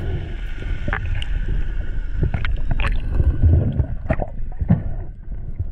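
Underwater water noise: a low, steady rumble of moving water with scattered sharp clicks and pops.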